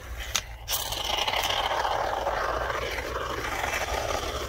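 Aerosol can of foam sealant spraying through its straw nozzle into gaps in a wooden wall: a steady hiss that starts about a second in, after a couple of small clicks.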